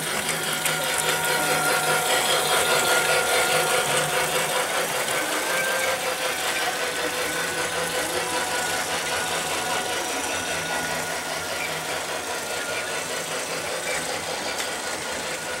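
Large toy train running on plastic track: a small electric motor's steady whine over a continuous clicking rattle of wheels on the track. It grows louder about two seconds in as the locomotive comes close, then slowly fades.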